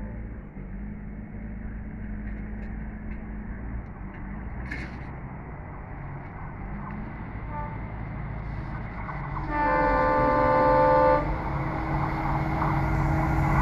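Approaching WDP4D diesel-electric locomotive with a low engine rumble that slowly grows louder. About two-thirds of the way through it sounds its horn once, for about a second and a half.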